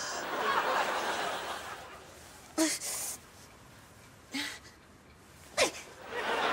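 Studio-audience laughter of a sitcom laugh track, fading out over the first couple of seconds, then three short vocal sounds from a woman, a second or two apart.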